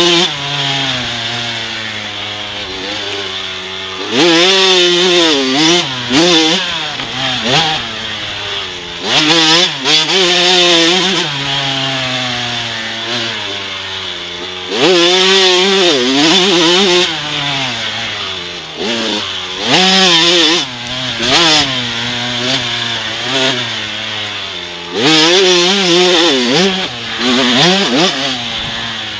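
2009 Kawasaki KX supermini's two-stroke single-cylinder engine revving hard and dropping back, over and over, as the bike laps a dirt circle track; about five loud surges of rising revs, each falling away again. Heard from a helmet-mounted camera.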